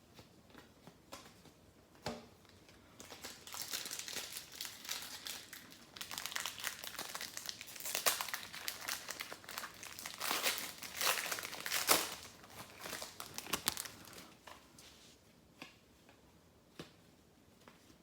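Foil wrapper of an Upper Deck hockey card pack being torn open and crinkled. The crinkling lasts about ten seconds, with scattered light ticks before and after it.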